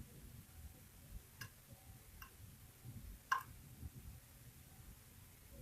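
A few sparse, small metallic clicks of a lock pick working the pin stacks inside a KeyMark lock cylinder, the loudest about three seconds in.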